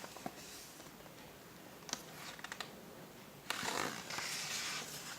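Picture-book page being handled and turned: a few light clicks and taps, then a paper rustle beginning about three and a half seconds in.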